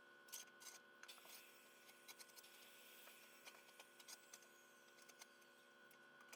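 Near silence: faint room tone with a steady low hum and scattered soft clicks and taps.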